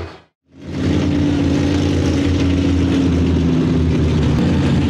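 Mega truck's engine idling steadily, fading in from silence about half a second in.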